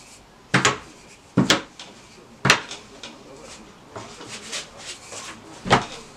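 Wooden rolling pin rolling out thin pizza dough on a flat tray, with softer rubbing and four sharp knocks against the tray and table.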